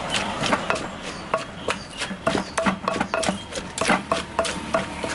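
A pestle knocking in a mortar as a green papaya salad (som tam) is pounded and mixed: an uneven run of sharp knocks, about three a second, some with a short hollow ring.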